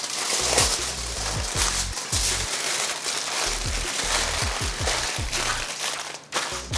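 Aluminium foil crinkling and rustling as a sandwich is wrapped in it, over background music with a repeating bass line.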